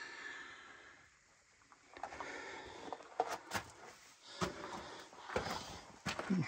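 Footsteps crunching on loose rock rubble in a mine tunnel: irregular scuffs and knocks, starting about two seconds in after a brief silence.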